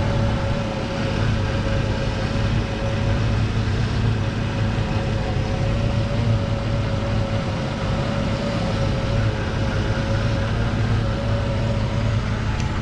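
Mercedes 190E windshield wiper motor and linkage running steadily under the cowl, a continuous mechanical whine with a low hum beneath it.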